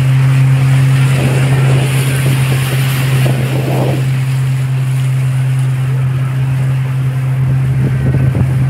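Motorboat engine running at a steady low drone as the boat cruises across the lake.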